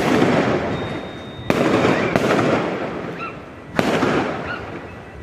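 Four sudden loud bangs, the first at the start, then about 1.5, 2 and 4 seconds in, each trailing off in a long fading rumble, with a few short high cries in between.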